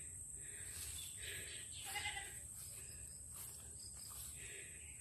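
Goats bleating faintly, a few short calls, over a steady high-pitched hum.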